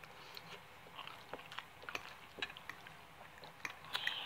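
A person chewing a mouthful of soft, creamy egg noodles close to the microphone: a run of short wet smacks and mouth clicks, more frequent from about a second in.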